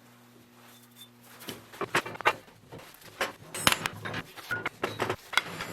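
A faint hum, then a run of irregular clicks and knocks from about one and a half seconds in: metal parts and tools being handled at a workbench.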